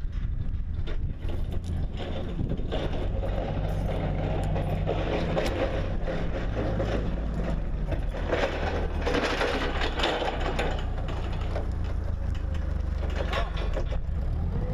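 A motor vehicle's engine running, its low hum shifting in pitch now and then, with rattles over it.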